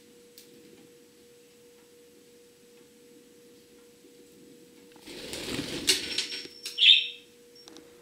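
Budgerigar wings flapping in a loud flurry about five seconds in, followed near seven seconds by one short, sharp budgie chirp, the loudest sound. Before that only a faint steady hum.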